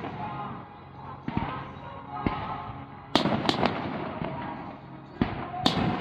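Aerial firework shells bursting overhead: a string of sharp bangs, several in quick succession about halfway through and two more near the end.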